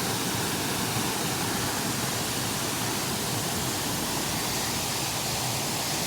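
Steady rush of flowing water: an even hiss that holds the same level throughout.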